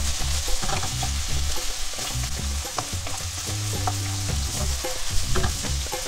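Chicken thigh strips and chopped shallot sizzling in hot oil in a nonstick wok, stirred with a wooden spatula that scrapes and taps against the pan, with background music underneath.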